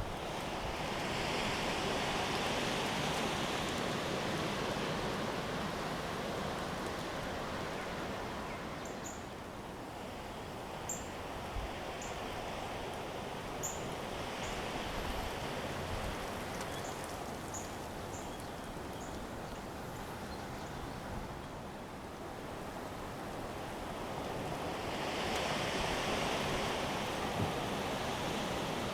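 Storm wind gusting, a steady rushing noise that swells and eases three times, with rain or sleet mixed in. A few faint, short high chirps or ticks come through in the quieter middle stretch.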